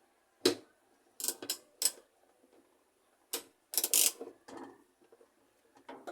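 Ratchet wrench with a socket extension, clicking in a few short bursts as it is fitted and worked onto a tight bolt in a washing machine's mechanism.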